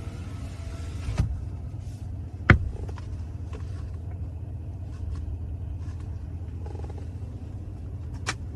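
Steady low rumble of a car, with a knock about a second in and a sharper, louder click about two and a half seconds in.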